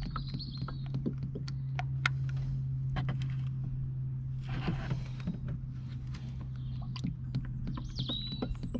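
Engine oil glugging out of a plastic canister into a plastic funnel, with irregular small clicks and gurgles, over a steady low hum.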